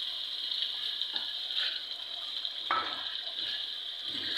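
Thick onion-tomato masala sizzling steadily in a steel kadai as whole small eggplants are added, with a couple of soft knocks along the way.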